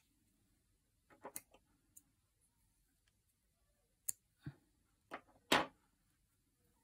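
Scattered soft clicks and taps of a crochet hook working through yarn, with long quiet gaps between them; the loudest few come about two-thirds through.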